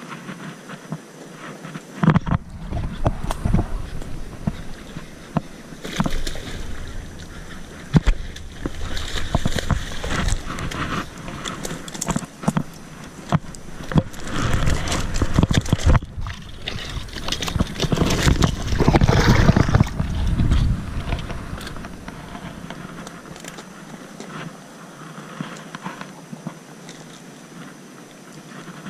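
Handling and movement noise from a moving body-worn camera: rustling, clicks and knocks over a heavy low rumble on the microphone from about two seconds in until about twenty seconds, then quieter rustling.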